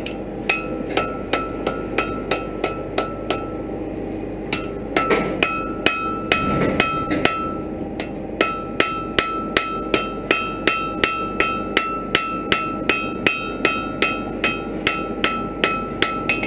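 Hand hammer striking a hot iron bar on an anvil, drawing it out for a fire poker: steady blows at about three a second, each with a bright ringing note. There is a short pause about four seconds in before the blows resume.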